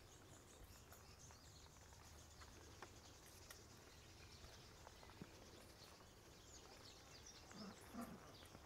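Near silence: faint background ambience with a few tiny scattered clicks and a faint murmur near the end.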